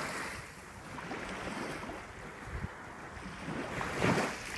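Ocean surf with wind buffeting the microphone, swelling briefly louder about four seconds in.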